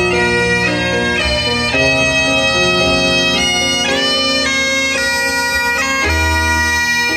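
Great Highland bagpipe playing a tune: the chanter moves through melody notes with quick grace notes between them, over the steady sound of the drones.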